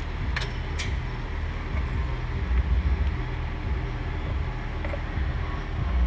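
Rear of a C5 Corvette being let down off its jack onto freshly fitted lowering bolts: two sharp clicks less than a second in, over a steady low rumble.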